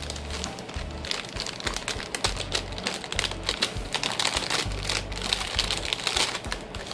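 A bag and its packaging crinkling and rustling as a toy is taken out: a dense, irregular run of small crackles and clicks.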